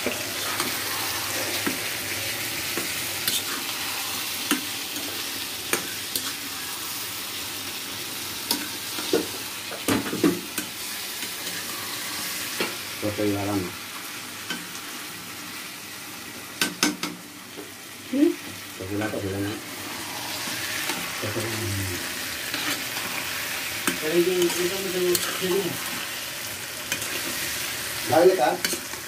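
Chicken pieces frying in oil in a metal karahi, sizzling steadily, while a metal spatula stirs and scrapes them, clicking sharply against the pan now and then.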